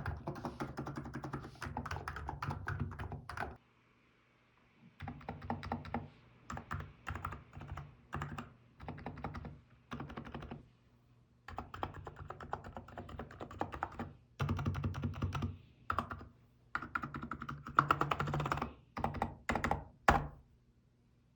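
Typing on a Hansung GK868B electro-capacitive keyboard with 35 g TICO switches and XDA-profile keycaps: runs of fast keystrokes broken by short pauses, stopping about 20 seconds in.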